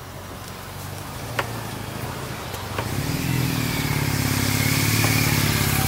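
A motor vehicle's engine running and growing steadily louder, strongest in the last few seconds, with a thin high whine over it and a couple of faint ticks early on.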